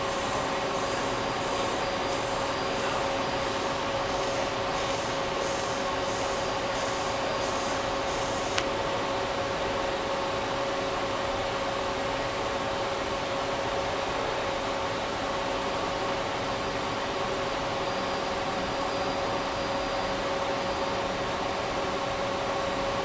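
Robotic arc welding: the arc hisses in a pulsing beat about twice a second over a steady machine hum with a constant tone. About eight and a half seconds in, the arc cuts off with a click, leaving only the steady hum of the welding equipment.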